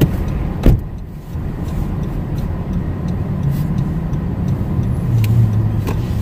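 Steady low road and engine rumble inside a car driving on snowy, bumpy roads. A single sharp thump comes less than a second in.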